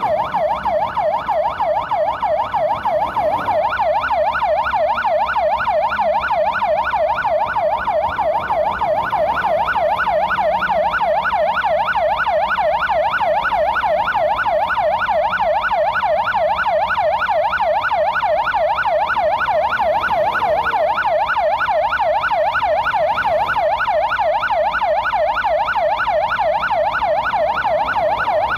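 Emergency vehicle siren on a fast yelp: one tone sweeping up and down about three to four times a second, running steadily without a break.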